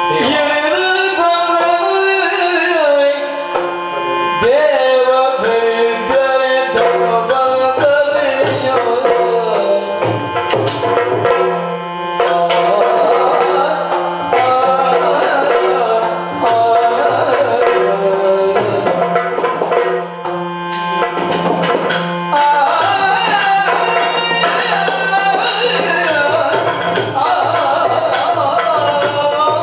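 Yakshagana accompaniment music: hand drums played in a busy rhythm over a steady drone, with a wavering melodic line above.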